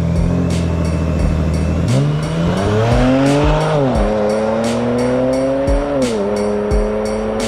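Music with a steady beat, over a car engine revving: its pitch climbs about two seconds in, drops, climbs slowly and falls again near the end.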